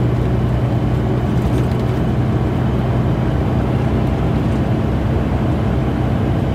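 Truck's diesel engine running at a steady low hum, with tyre and road noise, heard from inside the cab while cruising on the highway.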